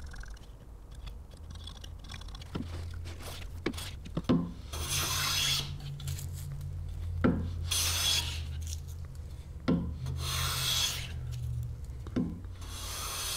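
Stanley Bailey No. 5 hand plane pushed across a wooden board in four strokes about two and a half seconds apart, each a second or so of shaving hiss. It is a test cut after the blade has been reset. A few sharp knocks come in the first four seconds, as the plane is handled and adjusted.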